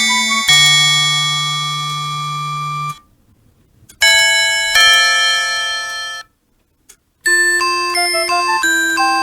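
Citizen Karakuri musical clock playing its chime tune through its small speaker from an FM-synthesizer sound board. Long held electronic chords stop about 3 s in, a single chord sounds after a short pause, and after a second pause a quick melody starts about 7 seconds in.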